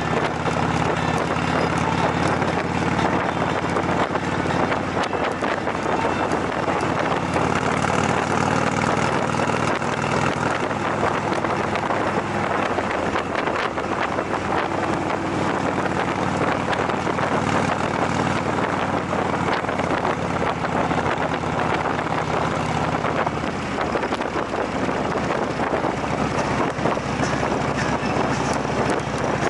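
Motorcycle engine running at cruising speed, a steady engine drone under heavy wind rush on the microphone.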